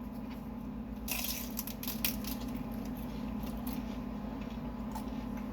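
Chewing and eating noises, with small clicks and a short rustle about a second in, over a steady low hum.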